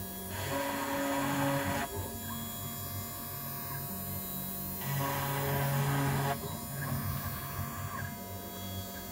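CNC machine's stepper motors whining as the axes move, in steady tones that switch pitch every second or two as the moves change speed and direction, with stretches of hiss during some moves.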